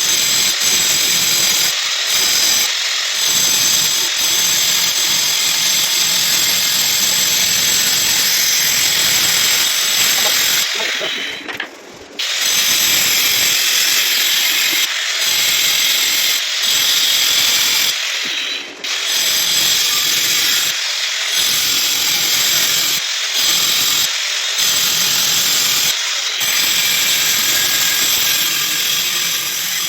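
Electric power tool running steadily with a high whine, cutting out briefly twice near the middle.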